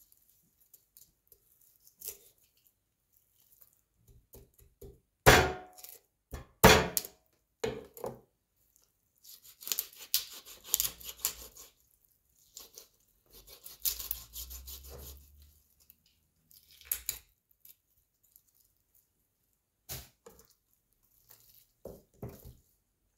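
Chef's knife cutting up a raw whole chicken on a plastic cutting board: two loud chops onto the board about five and seven seconds in, then stretches of the blade slicing and tearing through flesh and skin, with a few knocks as the bird is moved.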